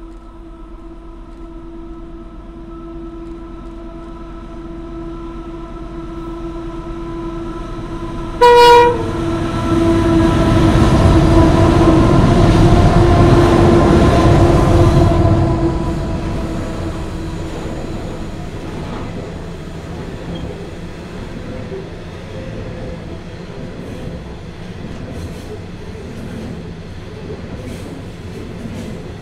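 Diesel locomotives hauling a loaded coal train approach and pass below, their engine sound with a steady hum growing to its loudest about ten to fifteen seconds in as the locomotives go underneath. A short, loud horn blast sounds about eight seconds in. The loaded coal wagons then roll past with a steady rumble and faint wheel clicks.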